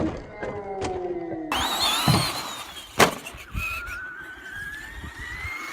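Electric RC car motor whining, falling in pitch early on. A sharp knock comes about three seconds in, then a steadily rising whine as the car speeds up.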